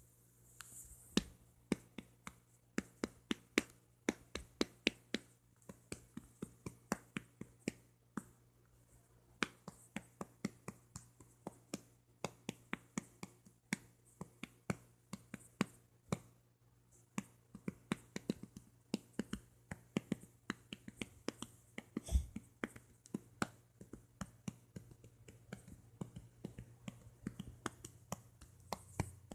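Short, sharp clicks from an edited dog-sound sample, sequenced to play a pop song's melody rhythm at a few notes a second over a faint low hum. A single heavier thump lands about two-thirds of the way through.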